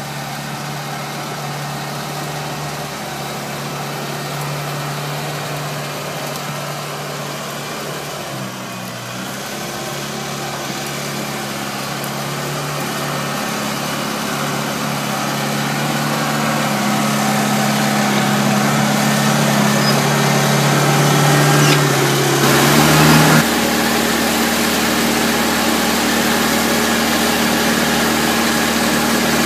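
The diesel engine of a CME 850 track-mounted drill rig runs steadily while the rig crawls along on its tracks, growing gradually louder. Near the end the engine sound changes abruptly to a steady running note.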